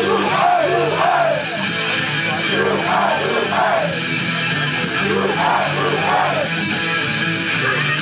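Loud rock-style pop music from a live stage performance, played over venue speakers, with a steady beat and singing.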